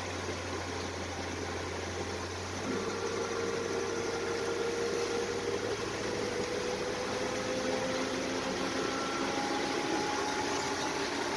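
The 5.7 Hemi V8 of a 1941 Dodge WC truck running under way, heard from inside the cab over a steady haze of road and wind noise. From about three seconds in, the engine note climbs slowly in pitch as the truck picks up speed.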